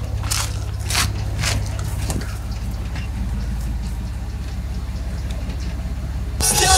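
Mercedes-Benz W124 coupé engine idling steadily, with four short hisses in the first couple of seconds as its air suspension is let down. Music from the car stereo starts just before the end.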